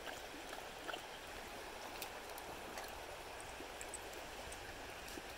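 Shallow, rocky brook flowing in a steady, gentle babble, with a few faint clicks.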